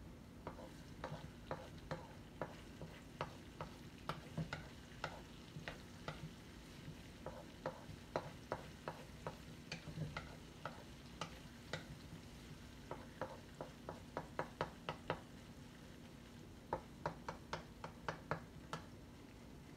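Onions and garlic being stirred in a pan as they fry. A stirring utensil knocks and scrapes against the pan in irregular taps, about two or three a second with short pauses, over a faint steady sizzle.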